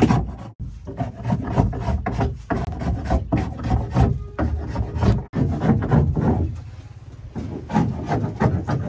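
A hand blade shaving a curved piece of wood: a run of quick, irregular scraping strokes, with two abrupt short breaks.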